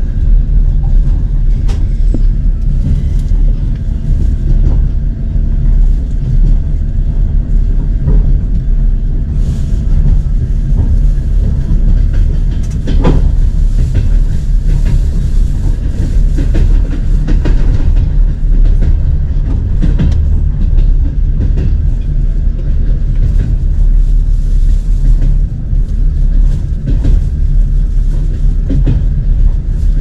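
Passenger train running: a steady heavy rumble with scattered clicks of the wheels over the rails, a sharper one about halfway through.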